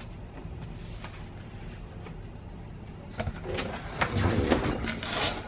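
Cardboard and plastic packaging rustling and scraping, with a few bumps, as a boxed inkjet printer is lifted out of its box, starting about three seconds in and lasting about two seconds.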